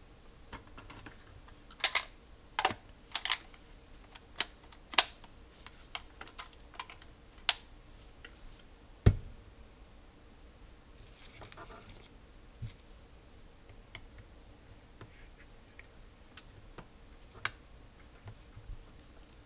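Sharp, irregular plastic clicks and taps as a battery-powered air-mattress pump's housing and battery compartment are handled. They come thickly over the first half, with a heavier knock about nine seconds in, then a brief rustle and a few scattered clicks.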